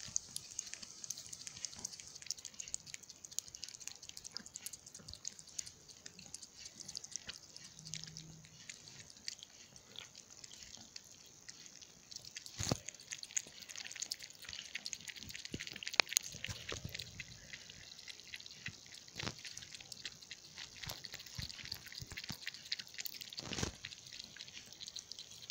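Kittens lapping milk from a bowl: a quick, irregular patter of small wet tongue clicks, with a few louder clicks.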